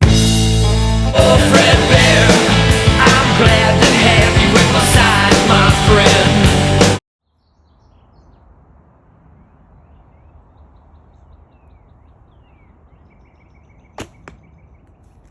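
Loud music for about seven seconds, cutting off suddenly. Then faint outdoor quiet until, near the end, a 1959 Bear Kodiak recurve bow is shot: a sharp snap of the string, followed a moment later by a softer hit of the arrow in the target.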